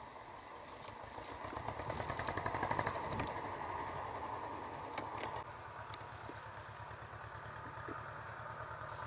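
An engine running steadily with an even, rapid pulse, swelling about two to three seconds in and then easing back.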